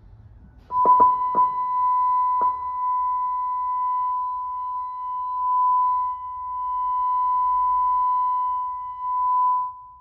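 Steady sine-wave test tone played through a pickup truck's car audio system while the amplifier gain is set with an oscilloscope under load. It starts with a few sharp clicks in the first couple of seconds, its level shifts slightly a few times, and it stops just before the end.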